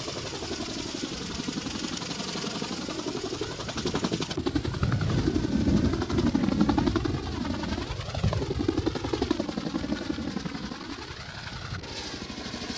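Twin-rotor CH-47 Chinook helicopter running close by, its rotors making a rapid, continuous beat. The sound swells loudest in the middle as it sets down, then eases.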